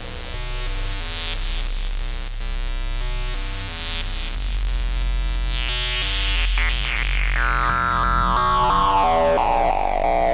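Electronic synthesizer jam: a synth line from synced oscillators whose pitch steps quickly from note to note under sample-and-hold modulation, run through delay, over a steady deep bass drone. In the second half a bright tone sweeps downward and the sound grows louder.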